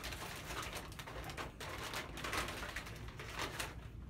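A foil chip bag crinkling as it is pulled open and a hand rummages inside for chips, in short irregular crackles.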